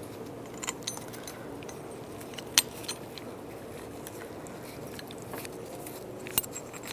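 Small steel hinge parts (washers and a nut) clinking as they are handled and fitted onto a door hinge pin: a few scattered sharp clicks, the loudest about two and a half seconds in and again near the end, over a faint steady hum.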